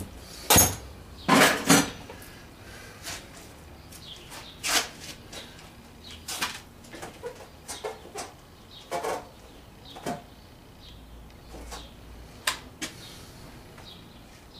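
Metal hand tools clinking and clacking in irregular sharp clicks and clanks, the loudest cluster in the first two seconds, with scattered lighter clicks after.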